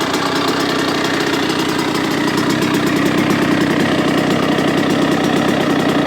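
Kawasaki KX85 motocross bike's 85cc two-stroke single-cylinder engine running steadily at idle, getting slightly louder about two seconds in.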